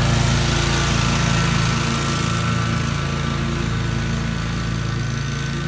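Lawn mower engine running steadily, with a thin high whine over it; it eases a little after about two seconds.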